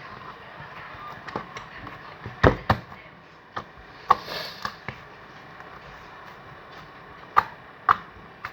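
Slime being kneaded and squeezed by hand, giving several sharp pops and clicks. The loudest come about two and a half seconds in and again near the end.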